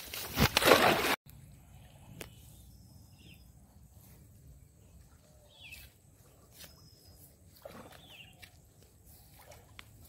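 Loud close rustling of grass as a freshly caught fish is handled in it, cutting off abruptly about a second in. After that, quiet outdoor background with a few faint bird chirps.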